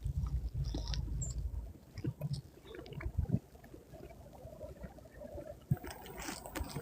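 Footsteps in snow, an irregular series of short scuffs, with wind rumbling on the microphone for the first second and a half or so.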